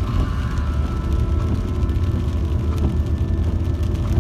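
Car driving along a wet road, heard from inside the cabin: a steady low rumble of engine and road noise.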